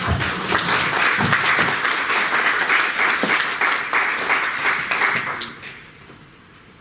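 Audience applauding: many hands clapping together at a steady strength, dying away about five and a half seconds in.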